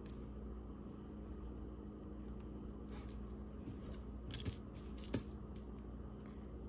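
Small pieces of costume jewelry clinking lightly as they are handled, with a few brief metallic clicks in the second half, over a faint steady hum.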